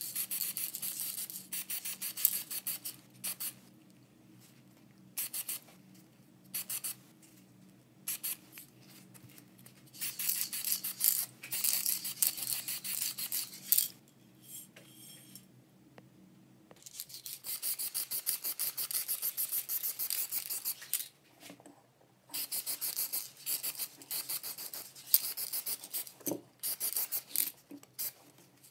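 Spray paint hissing out of a nozzle in repeated bursts of one to four seconds, with short spurts in between, as black paint is sprayed onto the drill parts.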